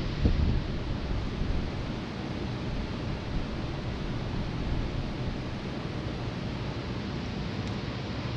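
A row of many electric fans (box fans and oscillating pedestal and table fans) running together as a steady rush of air. Wind gusts buffet the microphone, strongest about a quarter second in.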